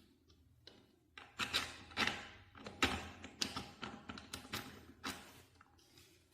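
Industrial fan parts being handled and fitted together by hand: a run of irregular taps, knocks and clicks starting about a second in, dying away near the end.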